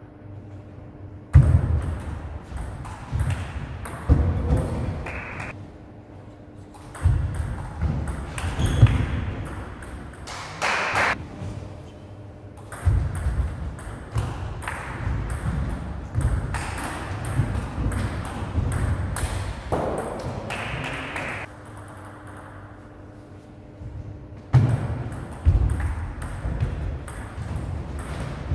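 Table tennis rallies: the celluloid-type ball clicking sharply off the paddles and the table in quick back-and-forth runs, with the players' feet thudding on the wooden floor. About four rallies, with short pauses between them.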